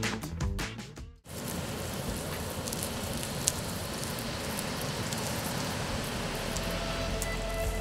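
Meat skewers sizzling on a barbecue grill: a steady crackling hiss with an occasional small pop.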